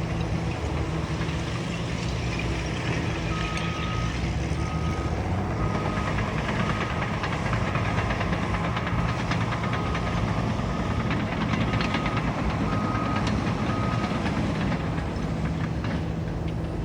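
Heavy diesel engine of a bulldozer running under load, with a reversing alarm beeping about once a second from a few seconds in until near the end.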